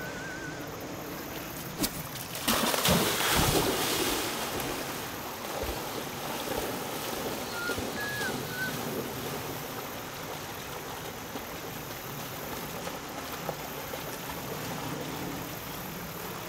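Storm-swollen creek rushing steadily, with a burst of loud splashing about two and a half seconds in as a Pudelpointer dog plunges in and swims out through the current. Two faint short chirps come near the start and about eight seconds in.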